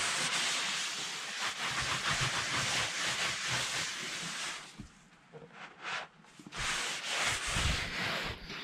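Aerosol spray can hissing in two long, even bursts: the first lasts over four seconds, then a pause, then a shorter second burst.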